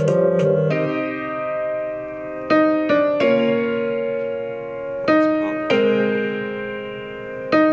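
Improvised piano-like keyboard chords from FL Studio, played live on an M-Audio MIDI keyboard and heard through small computer speakers. A run of quick notes ends about a second in. After that, sustained chords are struck every second or two, each fading away before the next.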